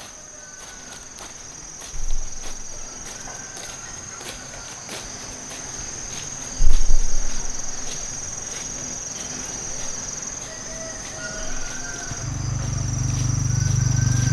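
Insects droning in one steady, high, continuous tone, with short bird calls and soft footsteps on a grassy path. A loud low thump comes about halfway through, and a low hum rises near the end.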